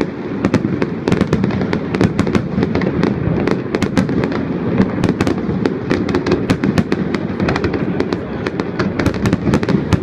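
Fireworks display going off nonstop: a dense, unbroken run of bangs and crackling reports over a continuous low rumble from many shells at once.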